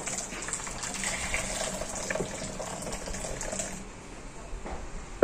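Hot water poured in a thin stream from a stainless steel kettle into a glass bowl of salt, dissolving the salt for brine. The pouring stops about four seconds in.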